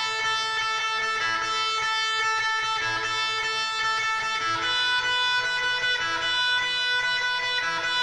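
Alternative rock instrumental opening led by guitar: held, ringing chords that change every second or two, with no vocals.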